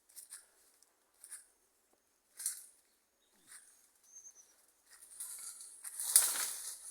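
Dry brush and leaves rustling and crunching in short scattered bursts, building about five seconds in into a louder continuous rustle, as dry branches are gathered and handled for a bonfire. A brief faint high chirp, like a bird, about four seconds in.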